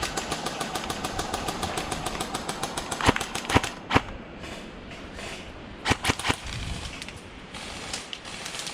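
Airsoft guns firing: a rapid full-auto burst of even clicks for about three seconds, then a few louder single shots around three to four seconds in and again around six seconds in.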